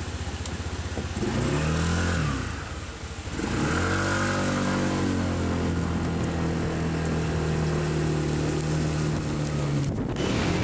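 Scooter engine pulling away. It rises in pitch briefly about a second in and eases off, then picks up again from about three seconds in and settles to a steady drone, which cuts off abruptly near the end.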